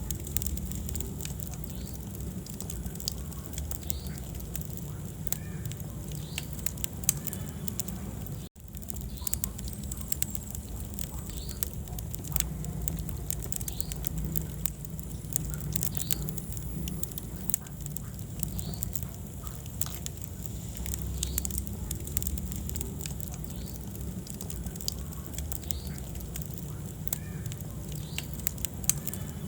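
Wood fire burning in a fireplace: irregular crackles and pops over a low, steady rumble of flames, with a momentary dropout about eight seconds in.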